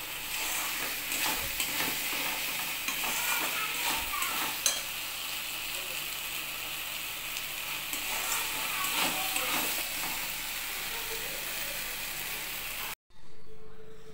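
Lote fish (Bombay duck) masala sizzling in oil in a metal kadai while a spatula stirs and scrapes it around the pan in irregular strokes. The sizzling cuts off abruptly near the end.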